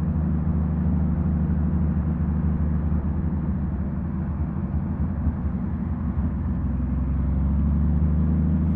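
Honda Valkyrie's flat-six engine running through Cobra six-into-six straight pipes, a steady low exhaust note heard from a helmet-mounted mic while riding. It eases slightly about midway and builds again near the end.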